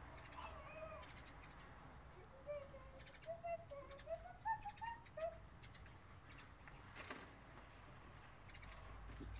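Faint clicks of a siskin's beak working at alder cones, with a run of soft, low whistled notes stepping up in pitch about two to five seconds in.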